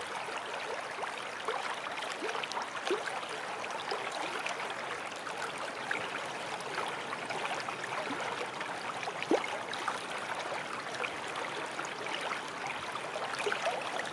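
Steady rush of a stream tumbling over rocks, with many small bubbling gurgles and one louder gurgle about nine seconds in.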